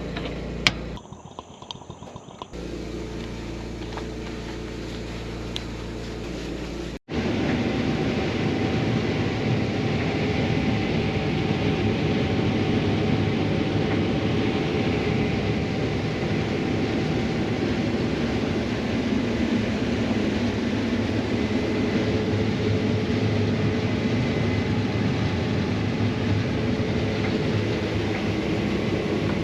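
A combine harvester running, giving a loud, even machine drone with faint steady whines in it. Before it, a quieter steady engine hum cuts off abruptly about seven seconds in.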